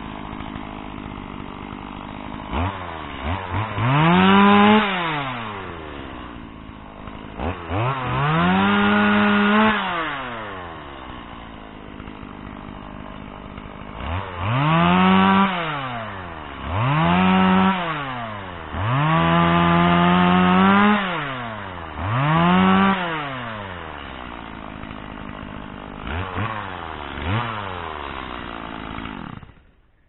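Two-stroke chainsaw idling and revved hard about six times, the pitch sagging under load as it cuts through a fallen branch, with a few short throttle blips. The sound stops abruptly near the end.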